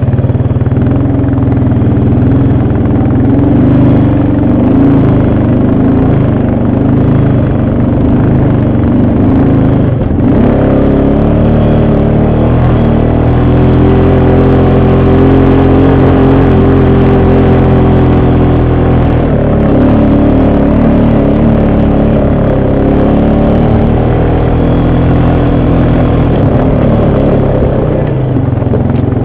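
ATV engine running under way, its pitch wavering up and down as the throttle changes, then holding steadier for a stretch midway.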